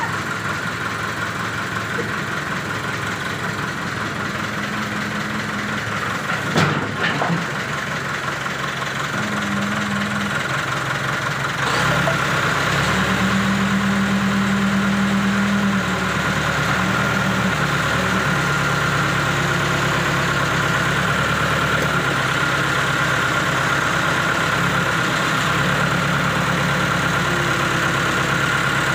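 Backhoe's diesel engine running steadily, with its pitch shifting now and then. There is a sharp knock about seven seconds in, and the engine gets louder about twelve seconds in.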